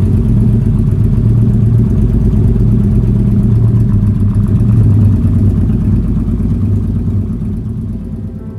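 Custom trike's two-litre Kawasaki Vulcan V-twin engine idling with a steady, deep run, fading away over the last few seconds.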